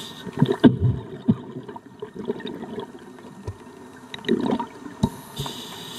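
Scuba diver breathing through a regulator underwater: bubbling, gurgling exhalations in the first second and a half and again around four seconds, then a steady hiss of inhalation from about five seconds.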